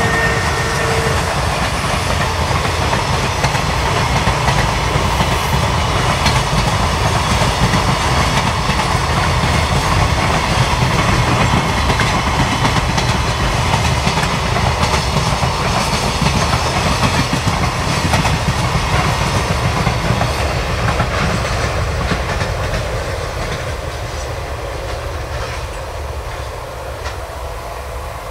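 Container freight wagons rolling past close by: a steady, loud rumble of steel wheels on rail with rapid clickety-clack from the rail joints. It fades over the last several seconds as the end of the train draws away.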